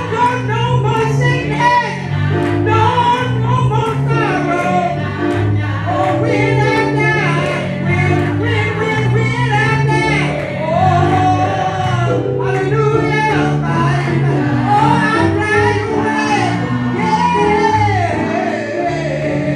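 A gospel song sung live into a microphone by a woman, with steady low chords held underneath the voice.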